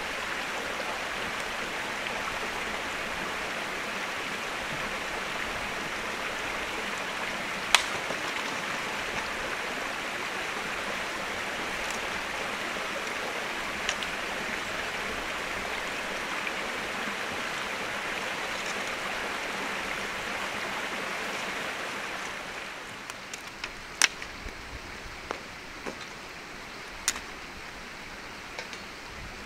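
Steady rushing noise of running water; about 22 seconds in it drops to a quieter background, with a few sharp clicks and taps.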